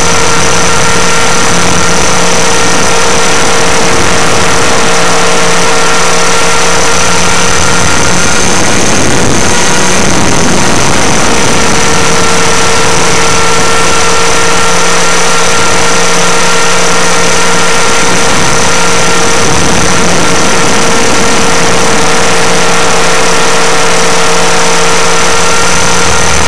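Align T-REX 500 ESP electric RC helicopter in flight, heard from a camera mounted on the airframe: a loud, steady whine from the electric motor and drive over dense rotor noise. About nine seconds in the whine wavers in pitch for a couple of seconds, then settles again.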